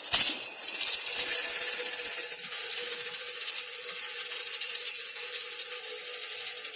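Tambourine struck once, then shaken in a steady, continuous metallic jingle.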